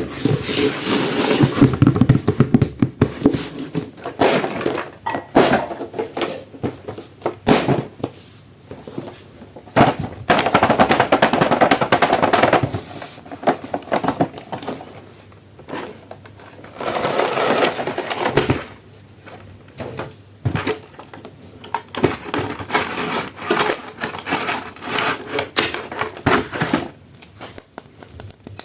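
Crinkling plastic packaging and clicking plastic parts as toys are unwrapped and handled, in bursts of dense crackling a few seconds long with quieter handling between.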